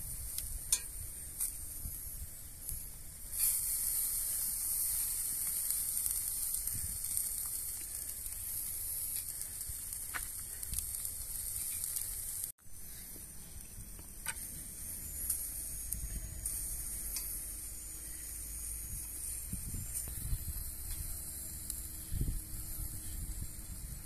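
Chicken and pepper kebabs on metal skewers sizzling over a charcoal fire: a steady hiss with a few sharp pops from the coals.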